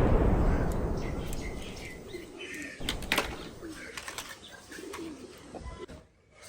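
The echo of a loud bang dying away over the first two seconds, followed by birds chirping and cooing, broken by a few sharp clicks.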